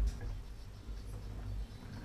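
Model railway train running on the track: a low, steady rumble with a few faint clicks.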